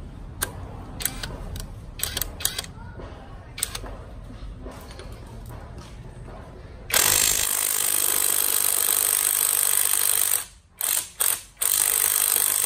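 Cordless impact wrench, a Makita DTW285 copy, hammering on a car's lug nut. About seven seconds in there is a loud burst of about three and a half seconds, then two quick blips and another burst of about a second. The nut is torqued to 120 ft-lbs, above the wrench's 110 ft-lb maximum, and does not come loose. Before the bursts come a few sharp clicks of the socket being handled and fitted.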